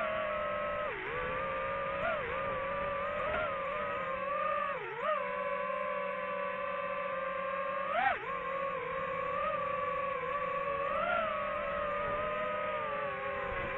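DJI FPV drone's motors and propellers whining steadily, the pitch dipping and swooping back up several times as the throttle changes, most sharply about eight seconds in.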